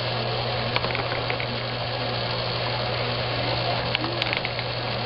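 O-gauge operating barrel car's vibrator mechanism buzzing steadily, shaking wooden barrels along the car and off its end, with a few light clicks of barrels about four seconds in.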